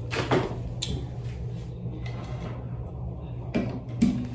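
Things being handled and put away while tidying a bathroom: a few scattered knocks and clatters, with a steady low hum underneath.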